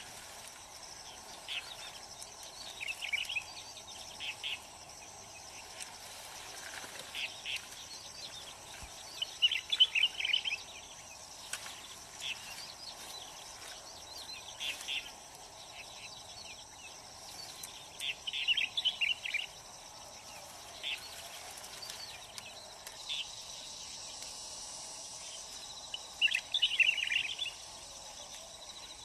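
Insects shrilling steadily in a high, even hum, with a bird breaking in four times with quick bursts of chirps.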